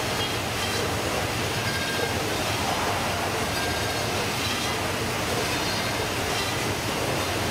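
Baader fish-processing machine and its conveyor running, a steady mechanical din.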